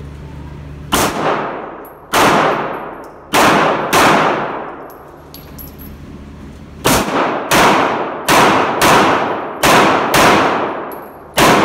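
Semi-automatic pistol shots during a USPSA Production-class stage run: about eleven shots, a few spaced ones and a quick string of six, with a pause of about three seconds midway. Each shot rings on in a long echo off the indoor range's walls.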